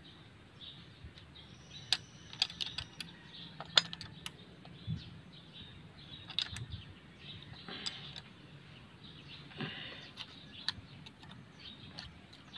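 Irregular light metallic clicks and taps of hand tools on the valve train of an Isuzu 4BE1 engine while its valve clearances are being set with a feeler gauge; the clicks cluster about two to four seconds in.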